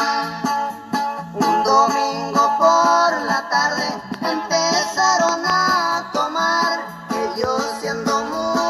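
Norteño music playing from a cassette tape on a retro QFX cassette boombox: a bending melody over a steady beat.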